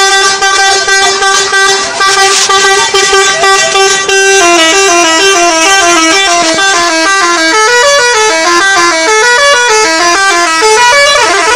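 Bus 'telolet' musical horn: a long steady held note for about four seconds, then a quick tune of short notes stepping up and down.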